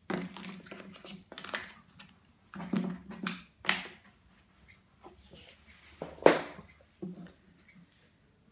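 Cardboard and plastic being handled on a wooden tabletop: an iPhone retail box and its accessory packs scuffing and knocking several times, the loudest a sharp knock about six seconds in.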